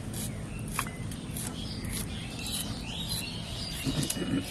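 Small birds chirping, over light crackling clicks as dry garlic skins are peeled off the cloves by hand. A brief low rustle comes near the end.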